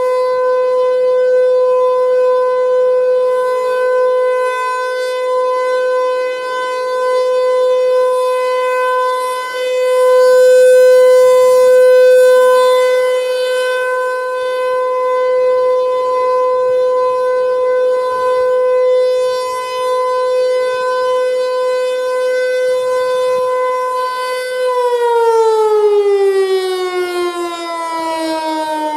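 ASC T-135 AC/DC rotating outdoor warning siren sounding its steady alert tone of about 500 Hz, swelling and fading as the rotating horn turns. About 25 seconds in the tone ends its alert cycle and winds down, the pitch falling steadily.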